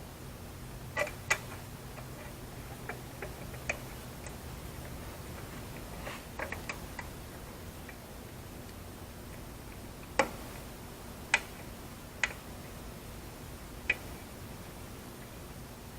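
Irregular sharp clicks and light taps of hand tools and small hardware being handled while a control box is fitted, about a dozen in all. The loudest come about ten and eleven seconds in, with a small cluster around six to seven seconds.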